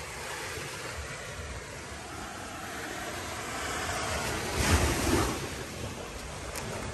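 Steady wash of ocean surf breaking on the shore, with wind on the microphone; a stronger gust buffets the microphone about two-thirds of the way through.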